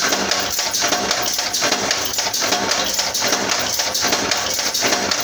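Power press running a progressive die on continuous stroke, punching steel strip with sharp, even knocks at about four strokes a second over the steady hum of its motor.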